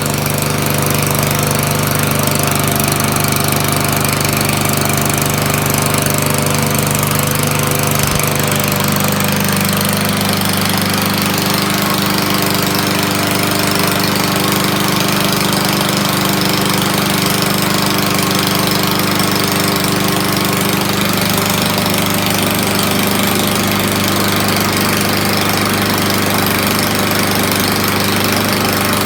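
Lawnmower engine running steadily after being started. Its pitch steps up slightly about a third of the way in and then holds.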